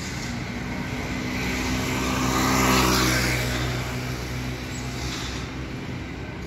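A road vehicle passing by: engine hum and tyre noise swell to a peak about three seconds in, then fade away.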